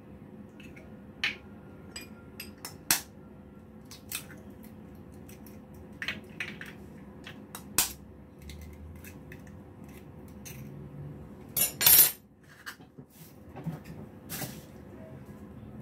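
Eggs being cracked with a knife blade over a stainless steel bowl: scattered sharp taps and metallic clinks, some briefly ringing, with the loudest cluster of knocks about twelve seconds in.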